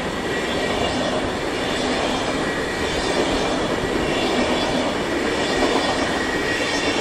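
SBB passenger coaches rolling past on the track: a steady rolling rumble of wheels on rails, with a faint steady high tone over it.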